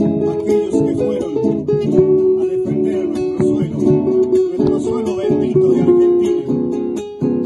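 A small folk ensemble playing a song: acoustic guitars strumming, with a bombo drum keeping the beat.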